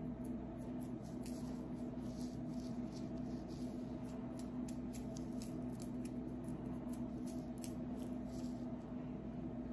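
Fingernails scratching and picking at a dry, flaky scalp through thick natural hair: a string of short, crisp, irregular scratches over a steady low hum.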